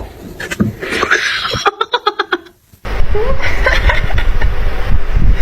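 People laughing, with a quick run of short, evenly spaced bursts. After a brief break about two and a half seconds in, a steady low rumble carries on under more laughing voices.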